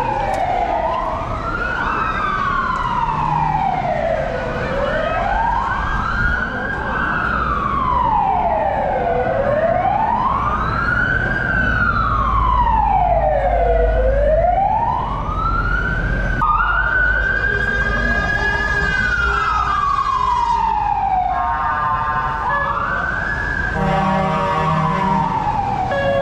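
Emergency vehicle sirens wailing, the pitch rising and falling about every four and a half seconds, with a second siren overlapping. About 16 seconds in the pattern changes to a slower sweep, then to quicker rising sweeps near the end.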